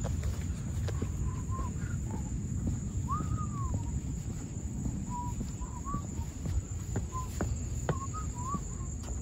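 Outdoor ambience: a steady high-pitched insect trill of crickets, short whistled bird calls every second or so, and a few footsteps on pavement, over a low rumble.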